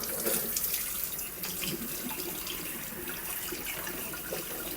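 Tap running into a sink, the water splashing steadily over the hose attachment end of a Shark cordless stick vacuum as it is rinsed out.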